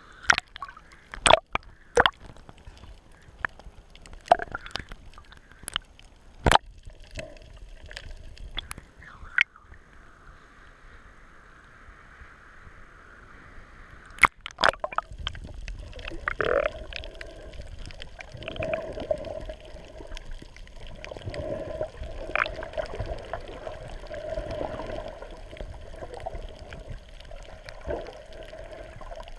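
Water sloshing and gurgling, with a series of sharp knocks through the first half. After the halfway point it gives way to a steadier rushing wash with a faint hum.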